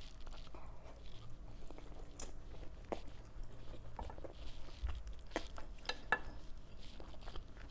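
Close-up chewing and mouth sounds of a person eating rice with pork Bicol express, with a few short sharp clicks now and then from the spoon and fork or the mouth.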